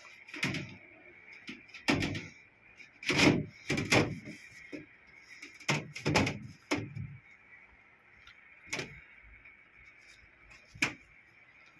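Knocks and clatters of a twin-tub washing machine's cover panel being handled and fitted back into place, about nine separate knocks with the loudest around three to four seconds in. A faint steady high-pitched hum runs underneath.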